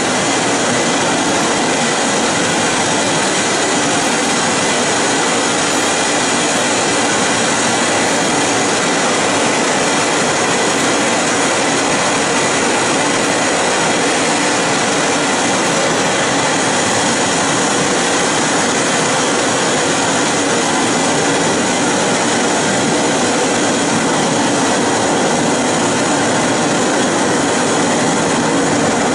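A loud, steady rushing noise with no beat, melody or pauses: the electronic noise soundtrack of a contemporary dance piece.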